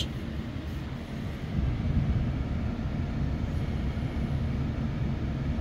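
Low, steady hum of a Ram 1500's 3.0-litre twin-turbo inline-six idling, heard from inside the cab, getting a little louder about one and a half seconds in.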